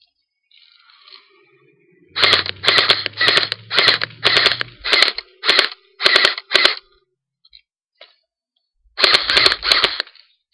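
Crosman Pulse R72 battery-powered airsoft rifle firing a quick string of about ten shots, roughly two a second, then after a pause four more in quick succession near the end.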